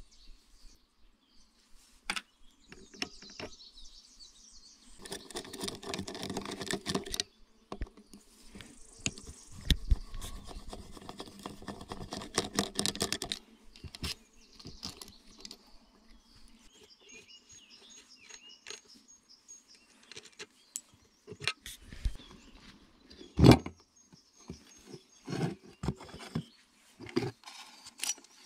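Metal engine parts clinking, scraping and rattling as a two-stroke engine's crankcase is taken apart by hand with a screwdriver on a wooden table. There are two longer stretches of scraping and rattling in the first half and one sharp knock late on.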